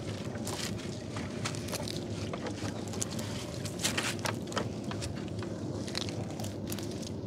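A small boat engine running steadily, with frequent irregular clicks and light knocks over the hum.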